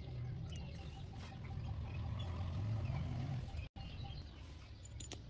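Quiet background ambience: a steady low rumble with faint, scattered bird chirps. It drops out for an instant about three and a half seconds in, and a few faint clicks come near the end.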